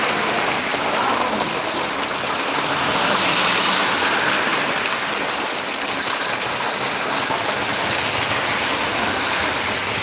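Heavy rain pouring steadily onto a road, puddles and a parked scooter.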